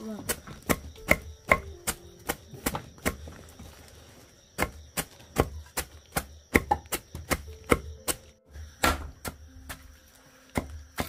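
Machete chopping leafy greens against a wooden log block: a steady run of sharp knife strikes, about two to three a second, with a couple of brief pauses.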